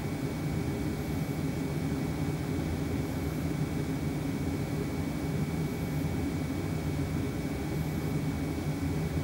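Steady whir of an Eberspächer D3WZ diesel auxiliary heater running as a parking heater, heard from inside the VW Sharan's cabin: an even low drone with a faint high whine through it.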